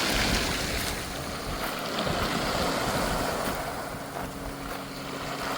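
Ocean waves washing and surging, with wind buffeting the microphone. A faint low steady hum joins in the second half.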